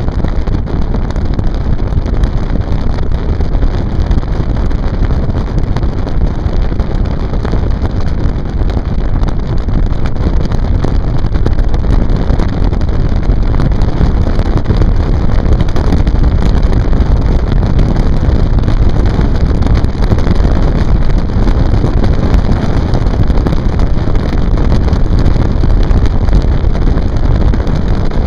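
Loud, steady wind rushing over the microphone on a moving boat, mixed with the boat's running rumble.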